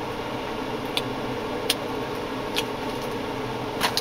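Someone chewing sweets: four sharp, irregular mouth clicks over a steady fan-like room hum.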